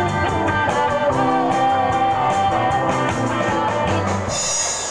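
Live band playing a rock song with electric guitar over a steady beat. The music cuts off abruptly about four seconds in, leaving a brief hiss.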